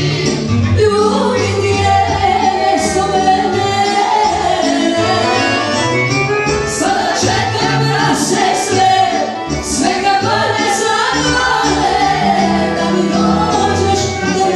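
A woman singing into a microphone over a live band, her voice held and wavering over a stepped bass line, all amplified through a PA.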